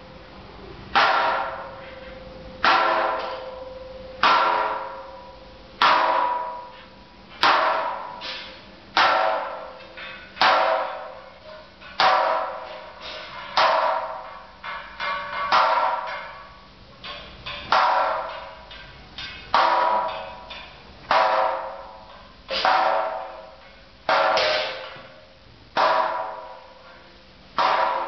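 Repeated hammer blows on metal, each ringing and dying away, about one every second and a half, over a steady hum.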